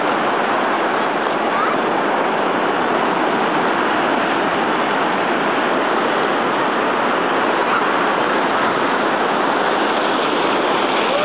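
Ocean surf breaking and washing up the beach in a steady, loud rush of water.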